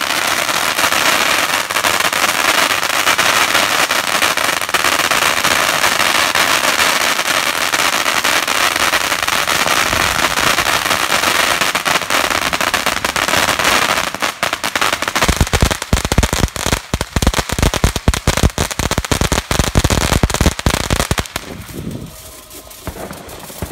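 Ground fireworks fountain spraying sparks with a dense, continuous crackle and hiss. About two-thirds of the way through it changes to a rapid run of loud separate pops and bangs, then dies down to a faint fizz near the end.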